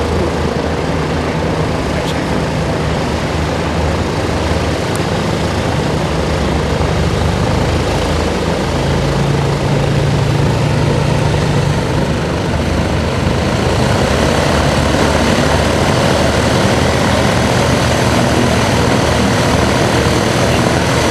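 Piper PA-28 Warrior's four-cylinder Lycoming engine and propeller running at low power while taxiing, a steady drone whose note shifts a little about nine seconds in, over a steady rushing noise.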